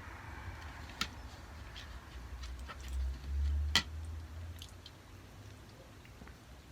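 Homemade slime being squished and kneaded by hand: scattered small sticky clicks and squelches, with a sharper click about a second in and a louder one near four seconds, over a low handling rumble.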